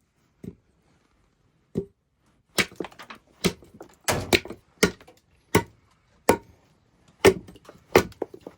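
Hard blows on wood: two single knocks, then a run of about ten strikes roughly every half second, each sharp with a short crack. The blows are meant to break a cut piece of wood loose.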